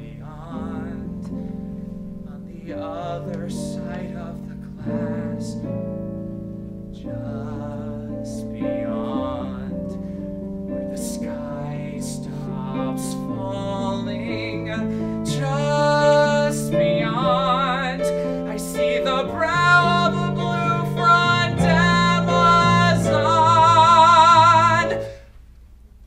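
Male voice singing a musical-theatre song over instrumental accompaniment, building to a loud held note with vibrato that breaks off about a second before the end.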